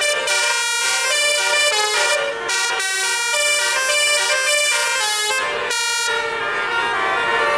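Indonesian 'telolet' bus horn: a set of multi-tone air horns on a tour bus playing a rapid tune of stepping notes.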